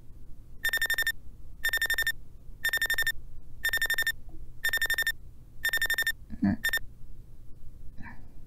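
Smartphone alarm beeping: six bursts of rapid high beeps, one a second, for a waking sleeper. About six and a half seconds in, a short groan comes and the alarm stops after a brief last burst; a faint murmur follows near the end.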